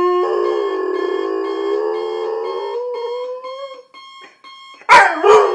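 German Shorthaired Pointer howling at the repeated beeping of an electronic alarm clock: one long howl of about three and a half seconds, rising slightly in pitch before it breaks off. The alarm keeps beeping alone for a moment, then two short, loud sounds come near the end.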